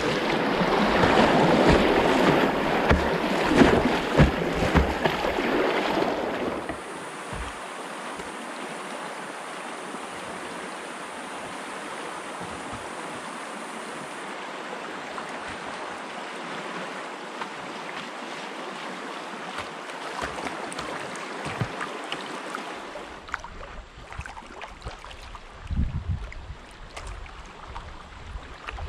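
River water rushing and splashing around a kayak running a riffle, picked up by a camera on the kayak's deck. It is loud for about the first six seconds, then settles into a steadier, quieter rush of moving water, with a few low thumps near the end.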